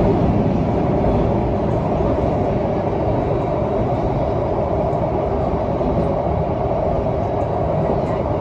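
Interior running noise of a Singapore MRT North East Line train, heard from inside the passenger car: a steady rumble of wheels on rail and traction equipment as the train travels between stations.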